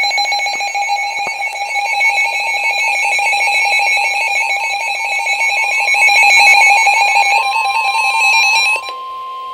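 A weather radio receiver's electronic alert alarm beeping rapidly and loudly, then cutting off sharply about nine seconds in. Near the end, a steady single-pitch tone comes in beneath it and carries on: the 1050 Hz NOAA Weather Radio warning alarm tone, which signals that a warning message is about to follow.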